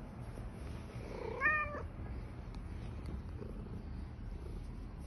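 A tabby cat meows once, a short call that rises a little in pitch, about a second and a half in.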